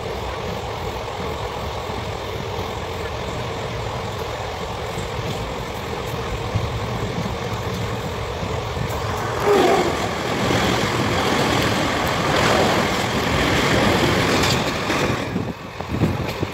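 Passenger train running, a steady rumble of wheels on rails with wind at the open door. About nine seconds in, a train passes the other way on the adjacent track: a louder rush for about six seconds that cuts off suddenly.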